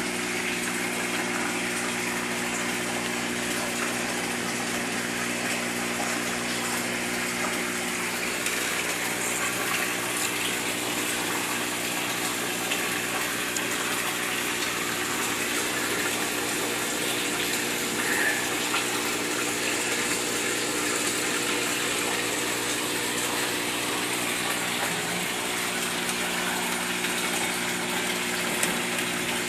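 Steady rush of water splashing and flowing in a goldfish tank, over a steady electric pump hum.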